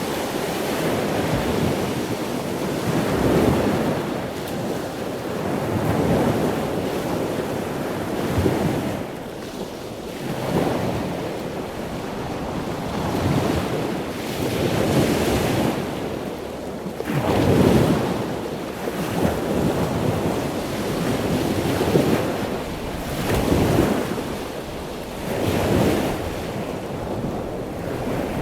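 Ocean waves breaking and washing in, a noisy surge swelling and ebbing every two to three seconds, with a louder break about 17 seconds in.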